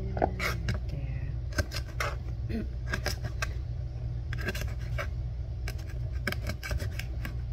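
Small kitchen knife cutting through soft food and tapping on a cutting board: irregular sharp clicks, a few a second, over a steady low hum.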